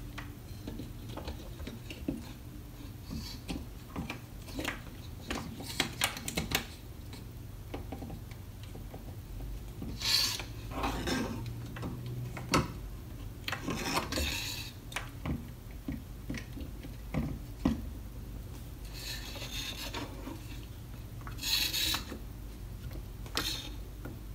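Greased internal parts of a Makita 6043D cordless drill being handled and fitted into the housing by hand: scattered light clicks and taps, with a few longer rubbing, scraping sounds.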